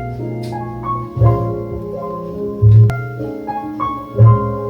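Background music: a mellow melody of held notes over a soft low beat that falls about every one and a half seconds.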